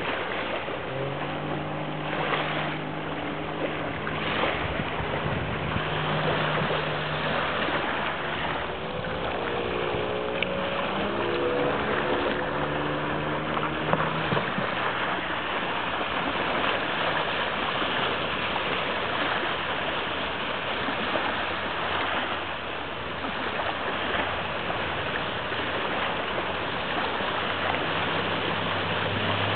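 Mercury 40 hp outboard motor running on a small boat under way. Its pitch shifts, rising about ten seconds in, under a loud rush of water and wind that covers the engine in the second half.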